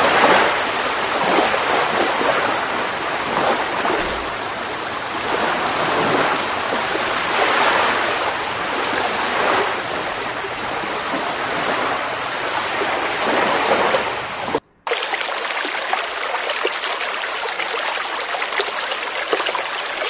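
A steady rushing, water-like noise that swells and eases. It drops out briefly about 15 seconds in and then goes on thinner, with less low end.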